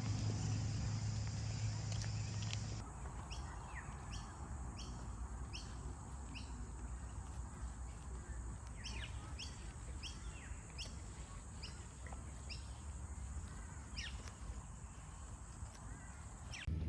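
Birds chirping outdoors: short, quick descending chirps repeating about once or twice a second. For the first three seconds a louder low rumble covers them, then cuts off suddenly.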